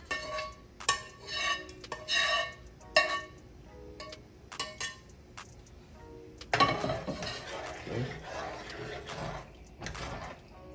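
Metal spoon scraping and tapping against a nonstick frying pan, a run of sharp clinks as vegetables are knocked off into a pot. About six and a half seconds in, a sudden louder clatter of the pan being set down on the stove, followed by about three seconds of rattling and scraping.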